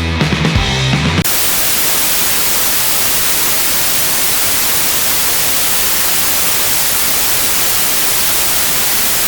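Music cuts off abruptly about a second in, giving way to a loud, steady static hiss like white noise.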